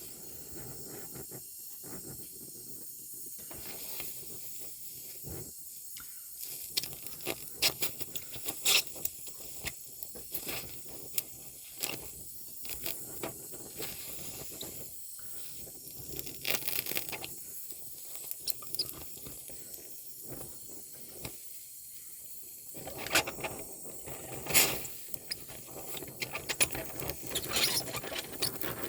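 Bronze welding on a car body mount: the arc gives a steady hiss broken by many sharp crackles and pops, with a few short pauses between runs.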